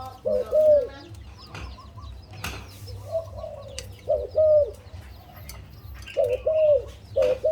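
Zebra dove (Malay dove) cooing in short, arched, staccato notes that come mostly in pairs, with a lull in the middle and quicker pairs again near the end.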